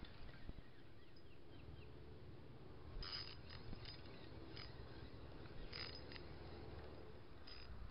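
Small spinning reel, a Kenzi Destroy 1000, being cranked to retrieve line: a faint whir with a few short, sharp high clicks in the second half, over a low steady rumble.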